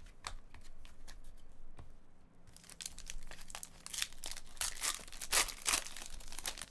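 A trading-card pack's wrapper being torn open and crinkled by hand, with faint handling clicks at first and the tearing and crinkling starting about two and a half seconds in, loudest near the end.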